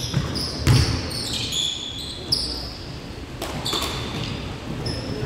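Basketball bouncing on the court during play, with several short high squeaks, typical of sneakers on a gym floor.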